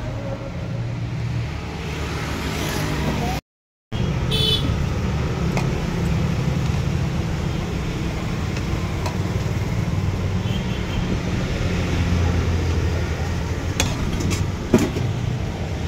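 Steady low rumble of passing road traffic. The sound cuts out for a moment about three and a half seconds in, and there are a few light clicks near the end.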